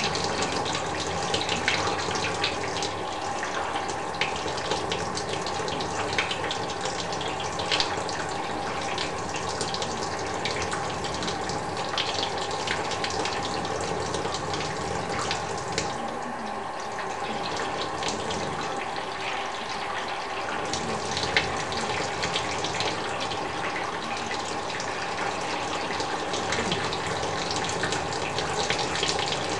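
Water pouring steadily in thin streams onto a budgie and the cage floor beneath it, with fine splashing and dripping as the bird bathes.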